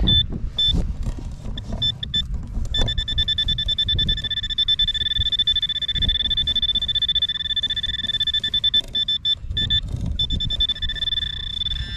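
Handheld metal-detecting pinpointer probing a pile of dug soil. It gives short high beeps at first, then a long continuous high tone from about three seconds in, breaking into quick beeps briefly near the end. That is the sign of a metal target in the loose dirt. Loose soil rustles and crumbles as it is pushed through by a gloved hand.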